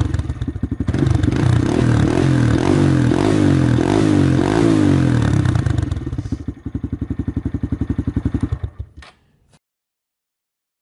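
Honda MSX125 (Grom) 125 cc single-cylinder four-stroke engine through an aftermarket exhaust, blipped in quick repeated revs, each rising and falling in pitch about twice a second. It then drops to an idle of even pulses that fades and stops about nine seconds in, followed by silence.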